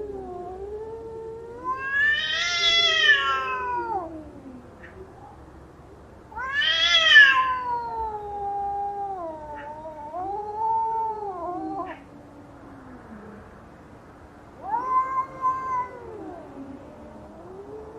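Cats fighting: long, wavering yowls and caterwauls, rising into loud screeches about 2 and 7 seconds in and again around 15 seconds, over low continuous growling.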